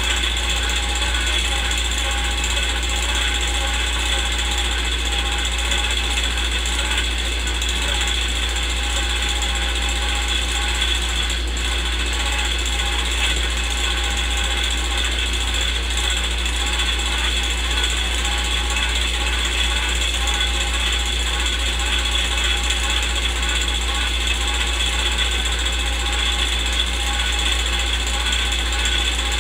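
Film projector running: a steady, rapid mechanical clatter and whir over a constant low hum.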